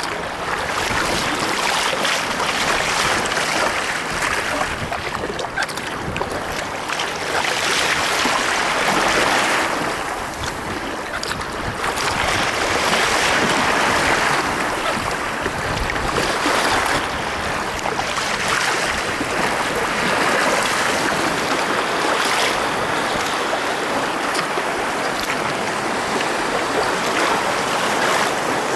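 Choppy water rushing and splashing against a sea kayak's hull as it surfs small waves downwind, mixed with wind buffeting the microphone. The rush swells and eases every few seconds.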